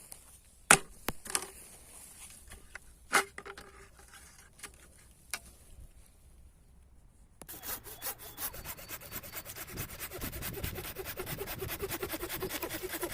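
A few sharp knocks in the first half, then a hand saw cutting through wood with rapid, continuous strokes from about halfway on.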